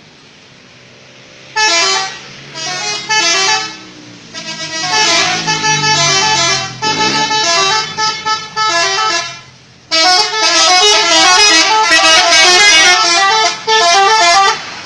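Telolet multi-tone musical horn playing its stepped jingle, first in short bursts and then as one long run of rapidly alternating notes near the end. A low vehicle engine hum runs underneath.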